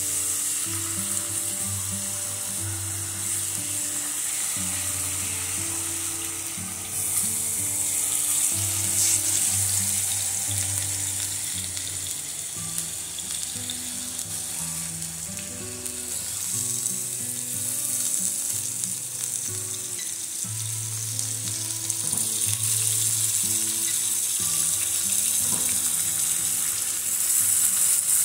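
Seasoned chicken breast fillets sizzling in a hot frying pan as they are laid in. The sizzle grows louder about seven seconds in and again near the end. Soft background music plays underneath.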